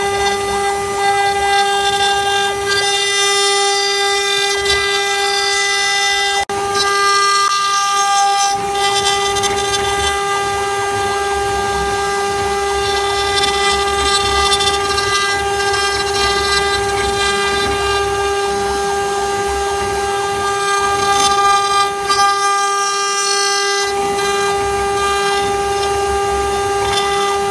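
CNC router spindle whining at a steady high pitch as its bit carves a wooden column turned on the rotary fourth axis, with the noise of the cut wood underneath.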